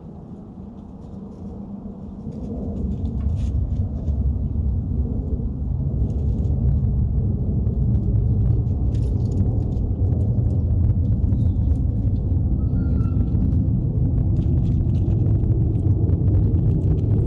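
A low, steady rumble that swells over the first three seconds and then holds, with faint scattered ticks above it and a brief high chirp late on.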